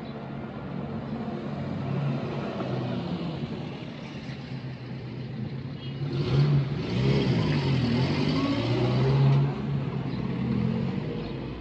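A motor vehicle's engine passes close by, its pitch wavering as it goes, loudest from about six to nine seconds in over low steady traffic noise.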